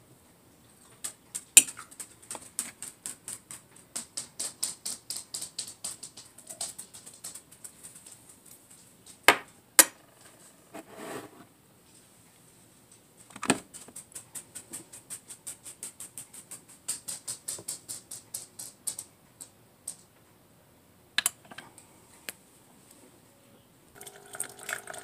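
A metal spoon scooping cocoa powder and clinking against a ceramic mug and a tin can: runs of quick light clicks, several a second, with a few sharper taps. Near the end a Chefman single-serve coffee maker starts up with a steady hum.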